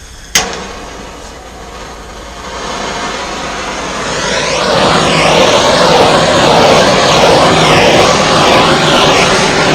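Handheld torch lit with a sharp click, then its flame hissing steadily. The hiss grows much louder after a few seconds and its tone sweeps up and down as the flame is moved back and forth over the wet poured acrylic paint.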